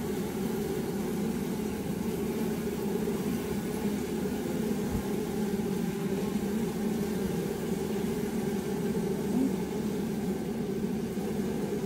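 Honey bees buzzing around the hive: a steady, even hum of many beating wings.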